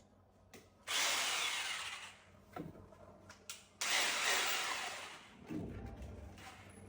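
Power drill run in two short bursts of about a second and a half each, with a few light knocks between them.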